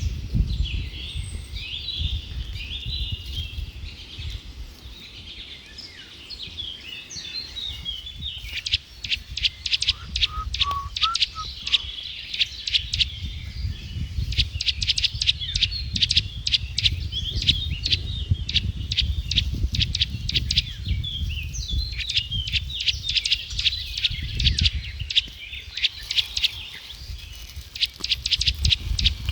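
Many small birds chirping in quick, dense runs of short notes, thickest from about a third of the way in, with a few lower calls briefly in between. A low rumble runs underneath.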